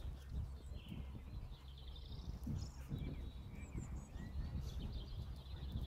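Small songbirds chirping and trilling, high and intermittent, over a low steady rumble.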